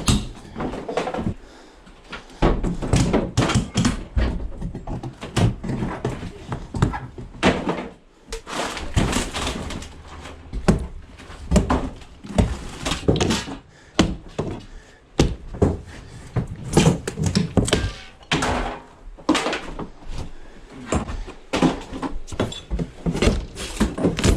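Irregular knocks, thuds and bangs of heavy, flood-soaked debris and furniture being handled and pulled apart.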